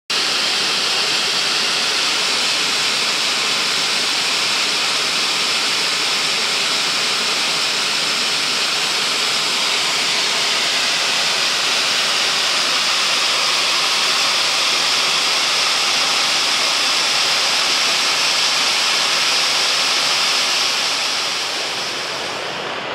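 Mountain stream rushing steadily over rocks, easing a little near the end.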